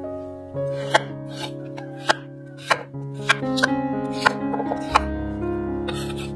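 Chef's knife chopping a peeled raw potato into chunks on an end-grain wooden cutting board: about eight separate sharp chops, unevenly spaced, over background music.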